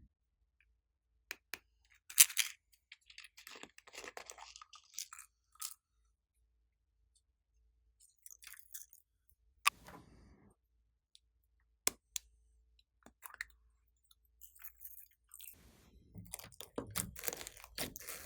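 Glossy slime being worked by hand: scattered sticky clicks and crackles with quiet gaps between, turning into denser, fuller squelching near the end.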